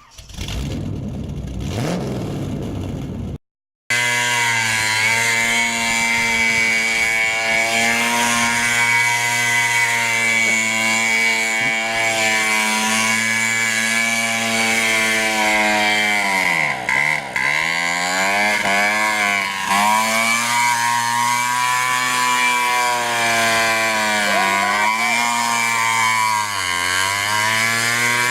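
Small 135cc ATV engine running at a steady, high, buzzy speed, its pitch dipping briefly and coming back up several times in the second half as the revs drop and pick up again.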